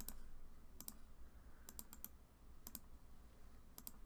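Sparse clicks of a computer keyboard being tapped, mostly in quick pairs about once a second.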